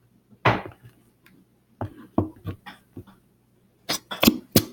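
Sharp knocks and taps as an upturned plastic Elmer's glue bottle is shaken and knocked against a plastic mixing bowl to get thick glue out. There is one knock about half a second in, a run of lighter taps in the middle, and a quick cluster of louder knocks near the end.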